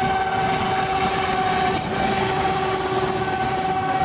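Locomotive horn held in a long steady blast over the rumble of the moving train, dipping briefly a little under two seconds in.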